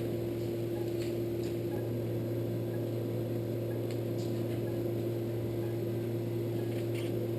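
Steady machine hum with one constant mid-pitched tone over a low hum, and a few faint ticks.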